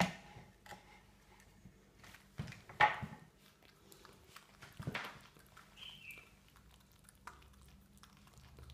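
Pet raccoon eating porridge from a bowl, lapping and chewing with soft wet clicks and smacks; two louder smacks come about three and five seconds in.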